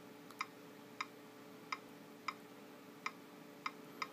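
Nexus 7 tablet's on-screen keyboard making its key-press click sound, one click for each letter tapped: about seven faint, sharp clicks at irregular spacing, roughly one every half second.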